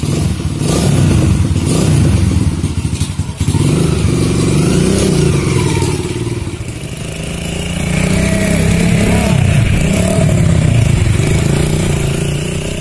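Motorcycle engine running and revving as the bike pulls away and rides, its pitch rising and falling with the throttle.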